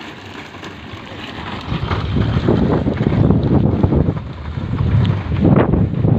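Wind buffeting the microphone: a deep rushing noise that comes in gusts, growing much louder about two seconds in.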